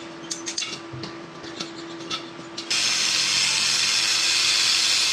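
A few sharp metallic clicks, then, about two and a half seconds in, an electric welding arc strikes abruptly and runs with a steady, harsh crackling hiss.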